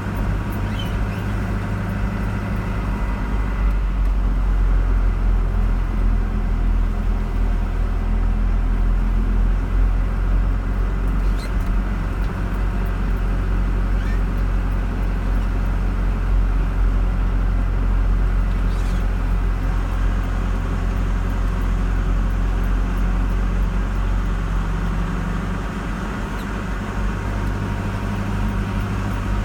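Car driving along a road: steady engine and tyre rumble, a little louder from about four seconds in and easing again near the end.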